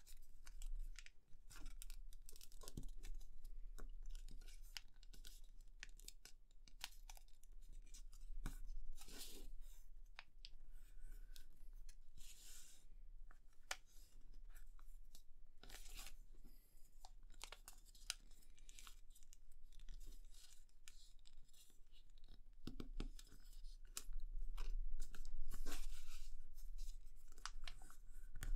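A sheet of paper being folded and creased by hand on a cutting mat: rustling, crinkling and scraping strokes as the fingers press and run along the folds, with a louder stretch of handling near the end.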